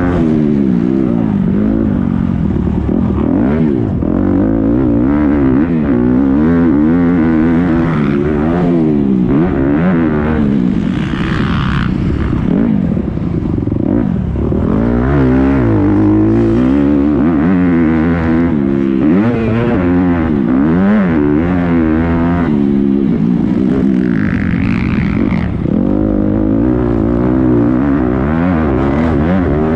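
Motocross dirt bike engine revving hard and constantly rising and falling in pitch as the throttle is opened and closed and the gears change through jumps and corners, heard from on the bike.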